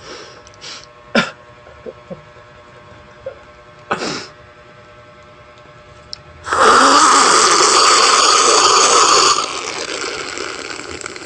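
A few short crackles of lettuce being handled, then about halfway through a loud, noisy drinking sound lasting about three seconds, slurping and gulping from a glass held close to the microphone, which drops abruptly to a quieter level near the end.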